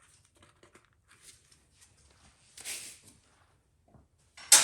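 Handling sounds on a small-block V8 being torn down: faint light clicks of parts and tools, a brief scrape about two and a half seconds in, and a sharp metallic clank near the end, the loudest moment.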